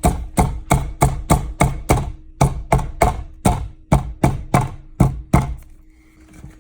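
Estwing hammer striking repeatedly, about twenty sharp blows at roughly three a second, knocking an electrical outlet box out of the wall; the blows stop about five and a half seconds in.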